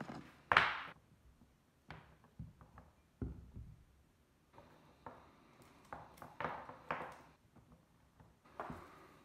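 Hand work on a three-strand rope splice with a metal fid on a wooden board: a sharp scrape about half a second in, a thunk a little after three seconds, then rustling and scraping of rope strands being tucked and pulled tight.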